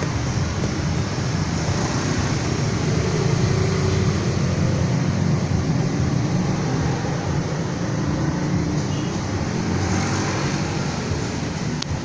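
Steady low rumble of background noise like passing road traffic, with one sharp click near the end. No clear birdsong stands out.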